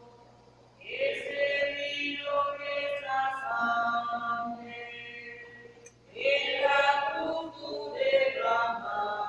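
A hymn being sung: a sung phrase starts about a second in, eases off around the middle, and a new phrase begins about six seconds in.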